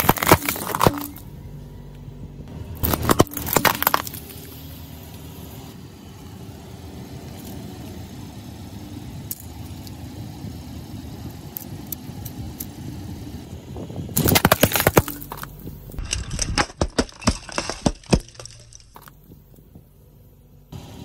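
Plastic disposable lighters cracking and snapping under a car tyre, in loud bursts of crackling near the start, about three seconds in and around fourteen seconds, followed by a run of sharp clicks and clatters. A low, steady car hum runs underneath between the bursts.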